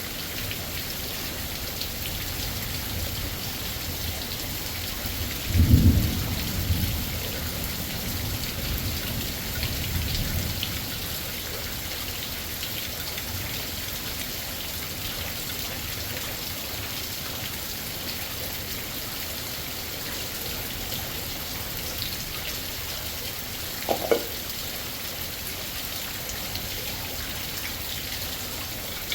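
Steady heavy rain, with a rumble of thunder swelling about six seconds in and a weaker one around ten seconds. A single short knock sounds near the end.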